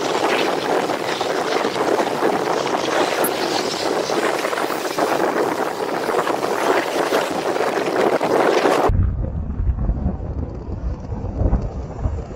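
Dense steady hiss of a car driving on a rain-soaked road. About nine seconds in it cuts abruptly to a duller low rumble with wind buffeting the microphone.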